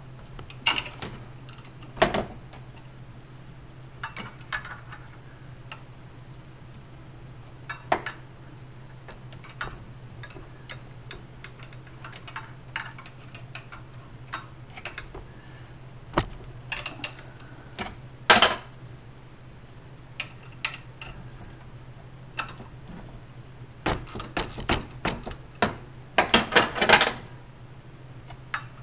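Scattered metal clinks of hand tools and bolts, with a socket ratchet clicking in quick runs, loudest near the end, as bolts are loosened in an engine bay. A steady low hum sits underneath.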